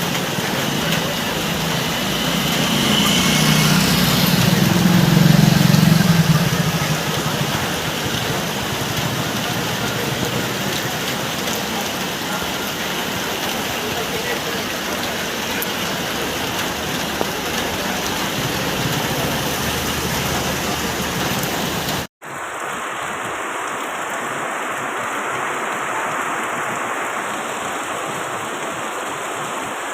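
Heavy rain pouring steadily, with a low rumble that swells a few seconds in and fades. About 22 seconds in, the sound cuts abruptly to another recording of rain.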